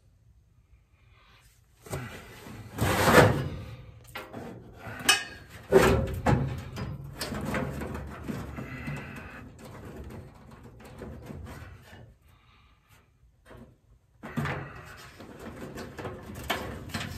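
Furnace blower assembly being worked out of its sheet-metal housing: irregular sliding, scraping and clunking of metal, with the sharpest knocks about three and six seconds in and a quiet spell shortly before the end.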